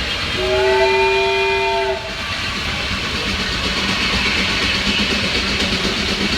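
Steam whistle blowing once for about a second and a half, several tones sounding together as a chord, over the steady running of steam-show machinery.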